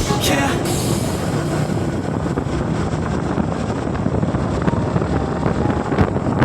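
Background music cuts off about half a second in, leaving steady rumbling wind noise on the microphone and road noise from a moving vehicle.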